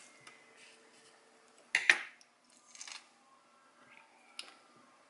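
A kitchen knife cuts around a plum on a wooden cutting board, and the plum halves are then twisted apart by hand, giving soft cutting and handling noises. One short, sharp knock about two seconds in is the loudest sound, with a fainter knock shortly after and a small click near the end.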